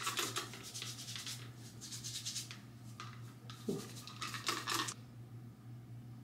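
Spray bottle misting onto hair in quick repeated squirts for the first two and a half seconds, then a few more short squirts between about three and five seconds in.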